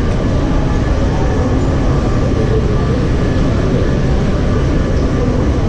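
Subway train running with a loud, steady rumble.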